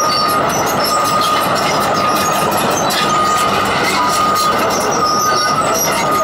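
Komatsu PC220 excavator travelling on its steel crawler tracks over gravel: the diesel engine running under a steady clatter of track links. A high-pitched tone comes and goes about once a second throughout.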